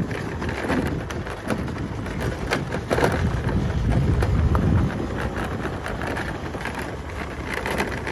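Wind rushing over a phone's microphone on a moving vehicle, with a low rumble and scattered crackles and knocks as it bumps along an unpaved dirt road.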